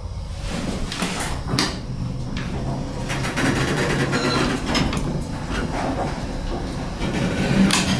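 Passenger elevator at a landing: a steady low hum of the car's machinery with the sliding car doors moving and several sharp clicks and clunks from the door mechanism and the open and close buttons being pressed.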